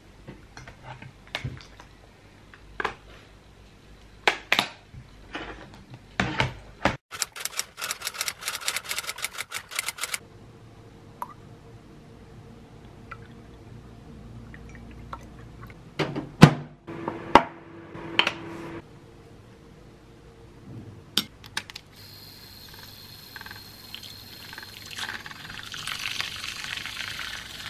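Scattered clicks and knocks of objects being handled, then milk poured into a cup. Over the last few seconds a handheld battery milk frother whirs steadily as it whisks matcha.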